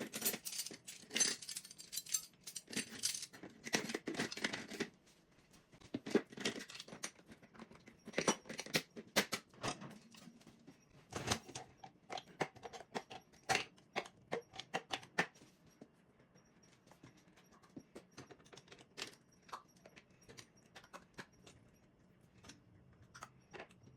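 Dishes and silverware clinking and clattering as a dishwasher is unloaded: a dense run of metallic jingling in the first few seconds, then scattered clinks and knocks.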